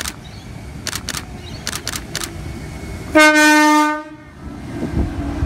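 Horn of the heritage Red Set electric train, one steady blast of about a second, about three seconds in, as the train creeps slowly through the platform. Before it come a few sharp clicks over the low rumble of the train, and the rumble carries on after the horn.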